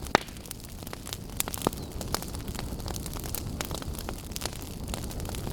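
Wind buffeting a handheld phone's microphone while walking, a steady rumbling rush with scattered sharp clicks and knocks.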